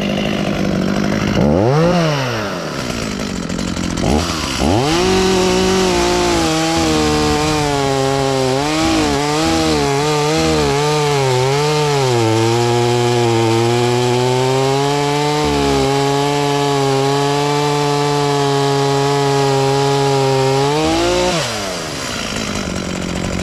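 Echo CS-440 two-stroke chainsaw blipped twice, then held at high revs while cutting through a log for about fifteen seconds, its pitch wavering and sagging under load, dropping lower about halfway through. Near the end the throttle is released and the engine falls back to idle.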